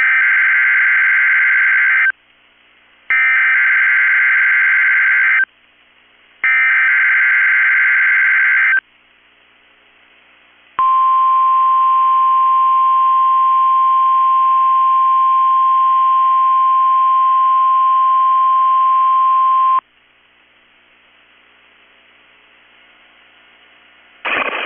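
NOAA Weather Radio Emergency Alert System test signal: three SAME digital header bursts, each about two seconds of warbling data tones a second apart, then the steady 1050 Hz warning alarm tone held for about nine seconds. This is the opening of the weekly test that sets off weather alert radios.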